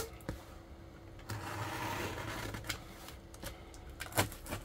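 Snap-off utility knife scraping and slitting along the edge of a parcel wrapped in plastic stretch film and packing tape, with the wrapping rustling under the hands and a few sharp clicks near the end.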